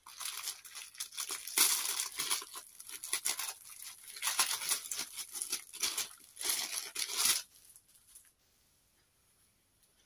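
Thin plastic packaging bag crinkling in bursts as it is opened and a folded piece of fabric is pulled out of it; the rustling stops about three-quarters of the way through.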